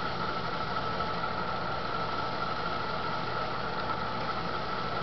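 Electric potter's wheel running at a steady speed, a constant motor hum with a steady whine.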